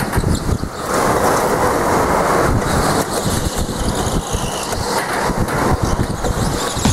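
Onboard noise from an electric go-kart at speed: steady rushing wind on a helmet-mounted camera microphone together with tyre rumble on concrete, and no engine note.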